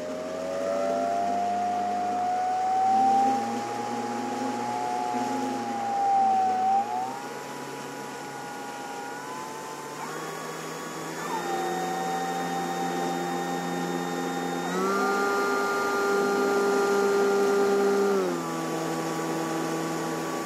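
Electric brushless motor and propeller of an E-flite Piper Cherokee RC model plane running on a 4S battery, heard from on board as a steady whine. Its pitch climbs slowly at first, then shifts up and down in sudden steps several times as the throttle is changed. Underneath is a rush of air.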